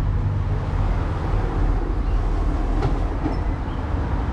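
Street traffic: a heavy vehicle passing, a steady low engine and road rumble.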